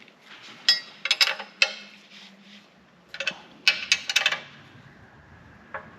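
Metal clinks of a wrench on the bolts of a bearing retainer cover as they are tightened down, in two bursts of several quick clicks each.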